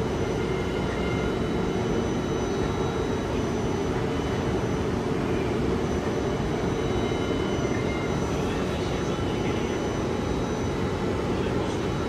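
Singapore MRT Circle Line train running at speed between stations, heard from on board: a steady deep rumble with faint high steady whines above it.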